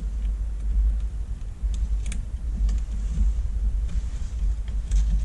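Loud, uneven low rumble that starts suddenly, with a few faint clicks of small parts and wires being handled on the circuit board.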